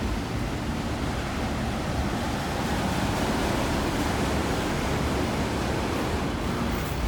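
Freight cars of a long manifest train rolling past: a steady rushing rumble of wheels on rail.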